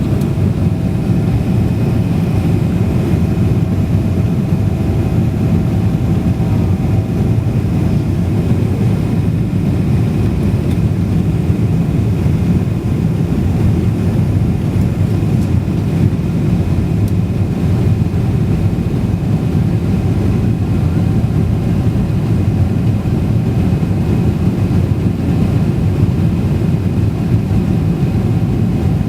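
Airliner in flight: a steady low rumble of engine and airflow noise, with a faint whine that fades out about eight seconds in.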